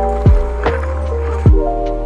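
Background music: a chill hip-hop beat with deep kick drums under sustained keyboard chords.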